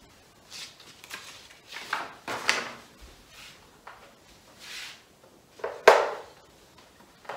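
Handling noises from a paper picture card being picked up and moved, with a few soft rustles and knocks. About six seconds in there is one sharp click as a magnet is pressed onto the metal whiteboard to hold the card.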